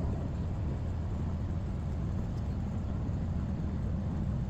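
Steady low engine rumble from the crane hoisting a rooftop HVAC unit onto its curb, running evenly throughout.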